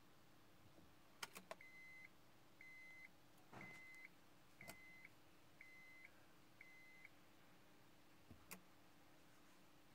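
A 2006 Honda MR-V's dashboard warning chime beeping six times, about once a second, as the ignition is switched on; a few faint clicks of the ignition key come just before the beeps.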